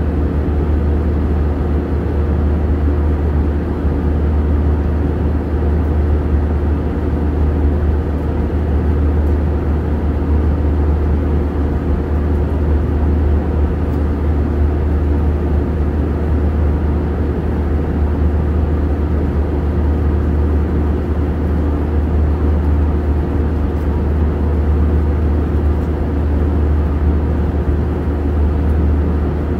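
Jet airliner cabin noise in cruise flight: the engines and rushing air make a loud, steady, deep drone, with a few steady hum tones in it.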